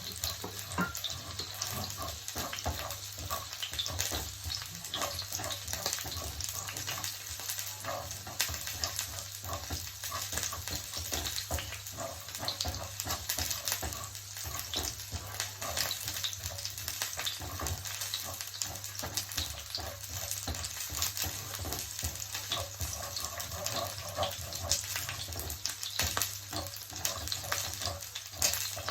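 Salmon and its sauce sizzling and crackling steadily in a frying pan, with a low steady hum beneath.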